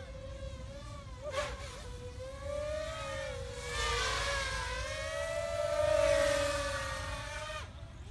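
FPV racing mini quadcopter's brushless motors and propellers buzzing in a high whine. The pitch rises and falls as the throttle changes, and the sound is loudest around six seconds in.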